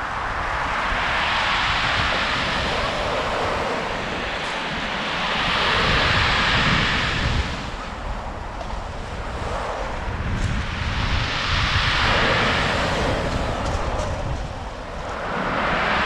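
Sea waves breaking and washing up a pebble beach, the hiss swelling and ebbing in surges about every five seconds, with wind rumbling on the microphone.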